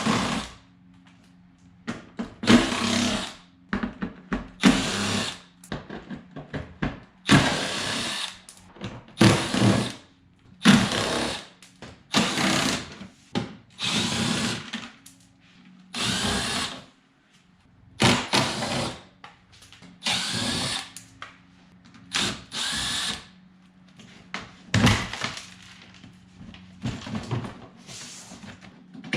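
A power drill-driver spinning out the 8 mm hex-head screws that hold a car's plastic engine undercover, one short burst per screw, about a dozen bursts with brief pauses between them.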